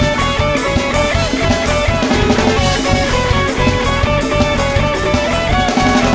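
Rock music with guitar and drums: a melody of stepped notes over a steady beat.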